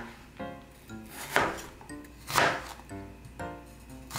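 Chef's knife slicing an onion on a wooden cutting board: a crisp cut through the onion ending in a knock on the board, about once a second. Soft background music plays underneath.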